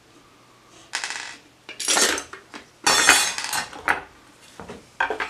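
Small screws and a rotisserie motor being handled on a workbench: light metallic clinks and rattles in several short bursts with quiet gaps between.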